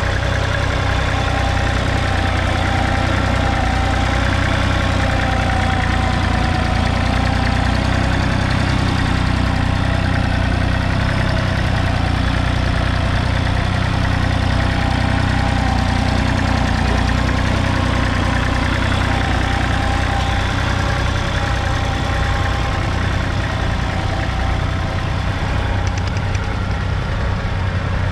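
Massey Ferguson 1010 compact tractor's 0.9-litre three-cylinder diesel running at a steady speed while pulling a single-furrow mounted plough through the soil.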